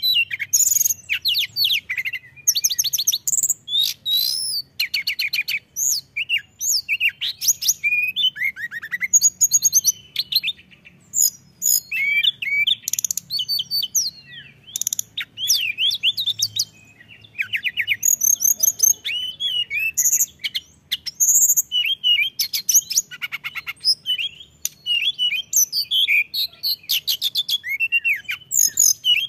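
Caged hill blue flycatcher (tledekan gunung) singing steadily and energetically: phrase after phrase of high, varied whistles, trills and sliding notes, with short gaps between them.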